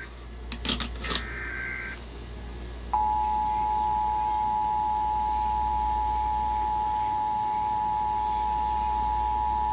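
Emergency Alert System broadcast: the last burst of the SAME header data tones ends about two seconds in. About three seconds in, the EAS two-tone attention signal starts, a steady two-note tone held unchanged.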